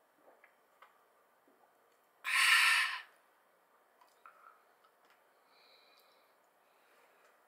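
A man's loud, breathy exhale lasting under a second, an 'ahh' after a swig from a can, with a few faint clicks before and after.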